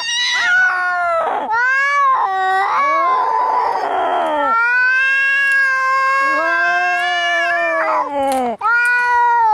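Cats fighting: long, drawn-out yowls that rise and fall in pitch, broken about three seconds in by a harsh, noisy stretch before the yowling resumes.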